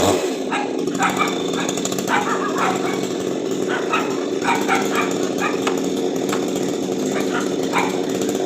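Chainsaw engine running steadily at idle, with short barks over it, repeated irregularly.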